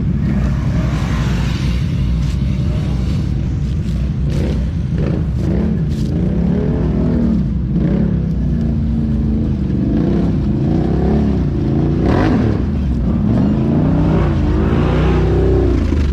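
Off-road vehicle engine running over a steady low rumble, revving up and down again and again from about a third of the way in. A few sharp clicks and clatter come early on.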